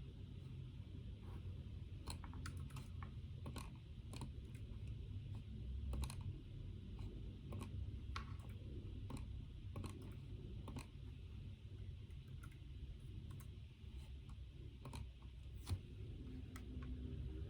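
Typing on a computer keyboard: irregular runs of key clicks, over a faint low steady hum.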